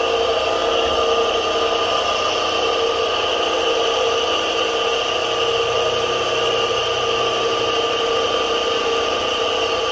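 Electric motor of a kite-line winding machine running steadily, winding line onto the spool, with a constant whine.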